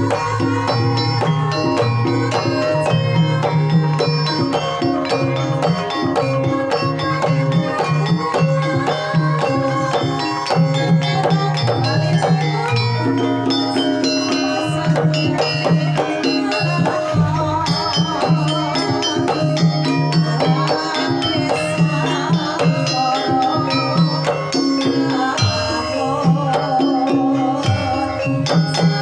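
Javanese gamelan ensemble playing a gending: bronze metallophones ringing in steady notes over repeated hand-drum strokes, with a wavering melodic line rising above them in places.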